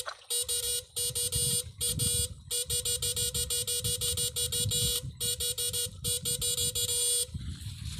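Electric fishing shocker buzzing with a high electric whine while switched on in the water, cutting out briefly about five times and stopping shortly before the end.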